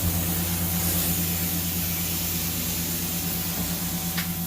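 Truck-mounted carpet-cleaning extraction system running through its wand and hose: a steady low hum under a constant hiss of suction and spray. A brief click near the end.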